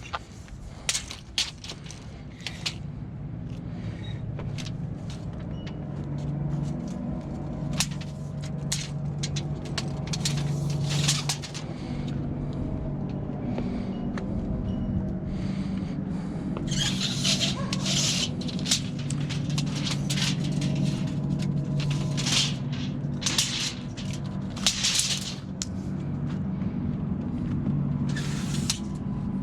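A steady engine drone throughout, with frequent sharp clicks and short scrapes over it.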